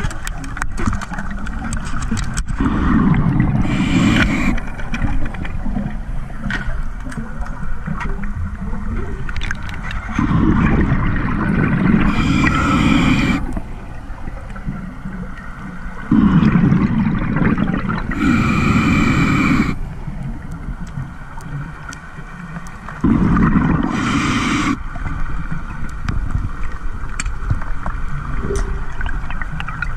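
Scuba diver breathing through a regulator underwater: four breaths several seconds apart, each a loud burst of bubbling with a hiss, over faint scattered clicking.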